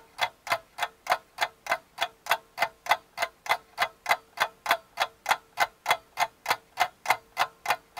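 Even, rapid ticking, about three ticks a second, over a faint steady hum.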